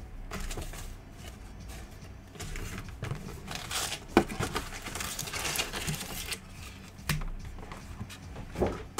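Cardboard box and foil trading card packs being handled: rustling and scraping, with one sharp knock about four seconds in.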